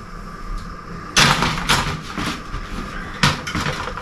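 White metal wire cupboard racks rattling and clattering as they are handled and knocked together. A burst of sharp clanks starts about a second in, with a few more strikes after it.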